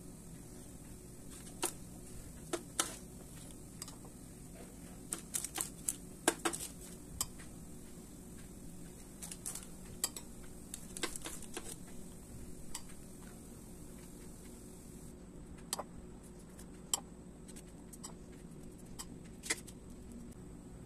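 Light clinks and taps of a metal spoon, in scattered clusters, as beaten egg is spooned onto raw bagel dough, over a low steady hum.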